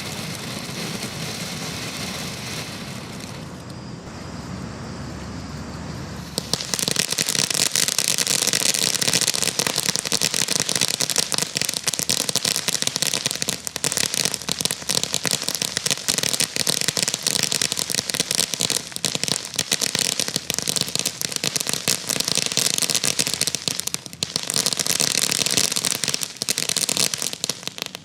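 A Black Cat '3 for 1' ground fountain firework burning. A quieter steady noise fills the first six seconds. Then comes loud, dense crackling, thousands of small pops, for about twenty seconds. It eases briefly near the end, flares once more, and cuts off abruptly.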